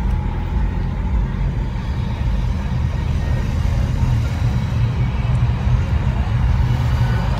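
Car driving in slow traffic, heard from inside the cabin: a steady low rumble of engine and road noise.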